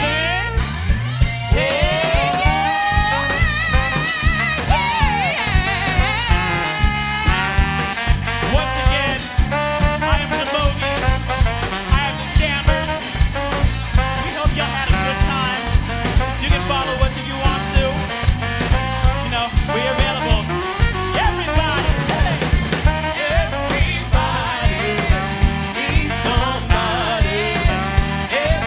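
Live band playing a pop-gospel-jazz fusion number: drum kit keeping a steady beat of about two hits a second under bass, guitar and saxophone, with singing.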